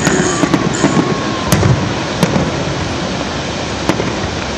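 Aerial fireworks shells bursting at a distance: a string of sharp bangs, several close together in the first second and a half, then single ones a little over two seconds and about four seconds in, over a steady rushing background noise.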